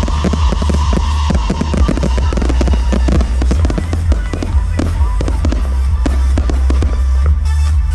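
Fireworks going off in rapid, crackling bursts over loud music with a heavy, steady bass. The bursts come thickly at first and thin out after about four seconds.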